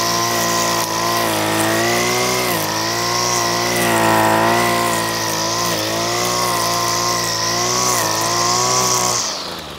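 Line trimmer running at full speed cutting through wiry nettles, its pitch dipping briefly a few times as the line takes the load. It is switched off about nine seconds in and winds down.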